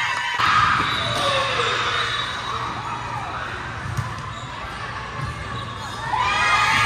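Players' shouts and calls echoing in a gymnasium during volleyball play, with a sharp smack of a volleyball being struck about four seconds in.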